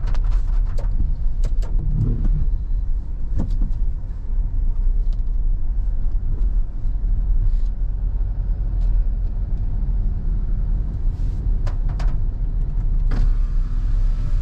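Car driving along a road: a steady low rumble of engine and tyres, with a few short sharp clicks or knocks now and then.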